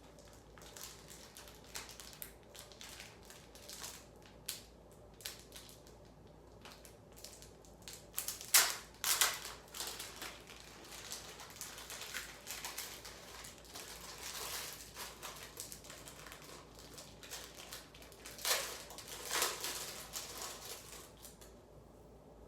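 Packaging rustling and crinkling as it is handled and opened, with scattered small clicks and two louder bursts of rustling, one about nine seconds in and one near the end.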